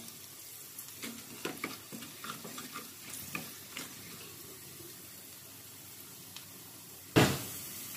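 Garlic frying in hot desi ghee in a small aluminium kadhai, a steady sizzle, with a wooden spatula clicking and scraping against the pan as it stirs in the first few seconds. One loud knock about seven seconds in.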